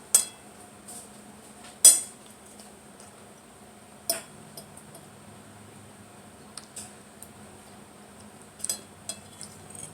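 Plates and cutlery being set down and handled on a table: a few separate sharp clinks and clacks, the loudest about two seconds in, with a quick cluster near the end.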